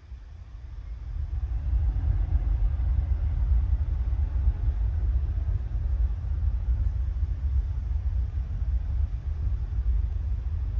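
Distant Embraer 175 jet on its takeoff roll, its two turbofans heard as a heavy low rumble that swells over the first two seconds and then holds.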